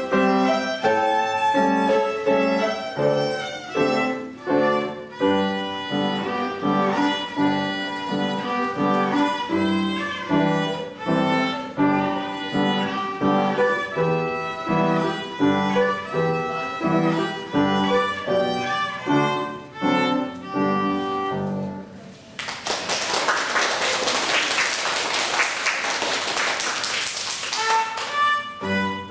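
Child violinist playing a small violin with an upright piano accompanying, note by note in a steady duet. About three-quarters of the way through, a loud hiss-like noise swamps the music for about six seconds, then the playing comes through again near the end.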